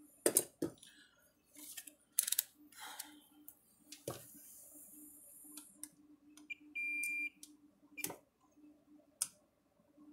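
Several sharp clicks and knocks of tools and test leads being handled on a workbench, then, about seven seconds in, a single steady high beep lasting under a second from a Fluke digital multimeter during a capacitor test.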